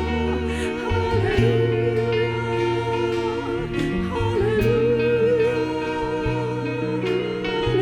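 Slow live worship-band music: sustained bass and keyboard notes under a wavering, held melody line.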